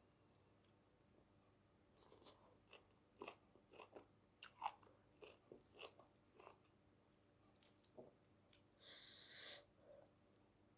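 Faint close-up chewing of a mouthful of dill greens with bacon and rice: a run of soft crunches and wet mouth clicks, with a short breathy hiss near the end.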